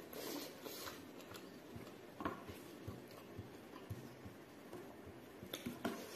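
Close-up eating sounds: chewing and mouth clicks, and fingers gathering rice on a plastic plate, with a sharp click about two seconds in and two more near the end.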